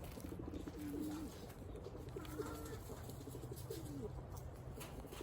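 Domestic pigeons cooing: several low, wavering coos one after another.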